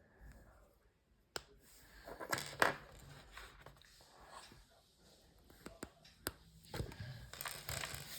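Small plastic minifigure parts being handled and fitted together: a few sharp clicks and short bursts of rustling and scraping.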